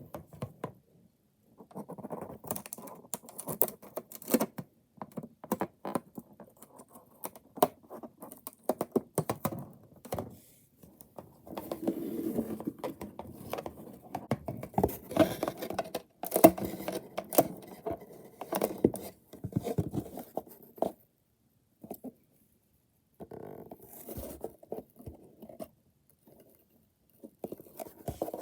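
Small parts being handled and worked by hand, with irregular clicks, taps and scraping rustles.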